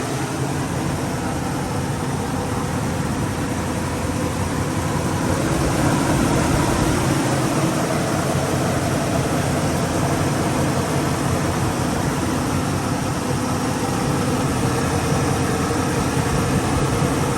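Carbureted car engine of a Chevrolet Monte Carlo SS idling steadily, growing a little louder about five seconds in. It is being run with a newly fitted one-way fuel check valve in the line to the carburetor, to check for leaks and that fuel is flowing properly.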